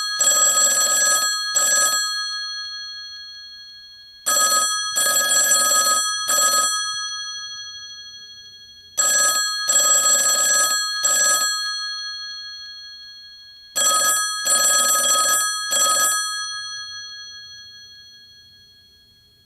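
Old telephone's mechanical bell ringing four times, about every five seconds. Each ring is a rattling burst of rapid clapper strikes in three short groups, then the bell tones fade away.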